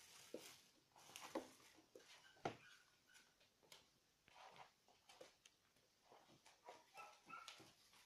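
Faint, scattered taps and scuffs of puppies' paws and claws and a rope toy on a hard floor as they play, with a few short faint high squeaks.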